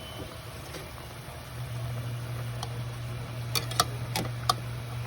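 Several sharp clinks of a metal utensil against the cooking pot as the boiled pork ribs are prodded to check that they are tender, over a steady low hum that starts about one and a half seconds in.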